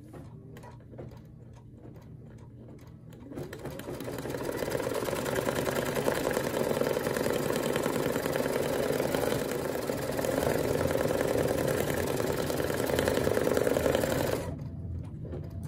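Brother Luminaire embroidery machine stitching out a design. It makes separate slow ticking stitches for the first few seconds, then runs up to full speed with a steady rapid stitching rattle, and quietens a second or so before the end.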